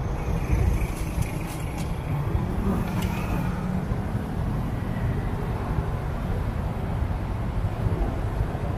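City street traffic: a steady low rumble of car and motorcycle engines idling and passing through an intersection, with a few faint clicks about one to three seconds in.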